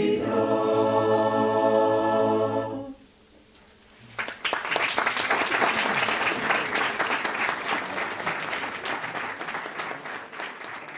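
Mixed choir singing a held final chord a cappella, cut off about three seconds in. After a second's pause an audience applauds, the clapping fading toward the end.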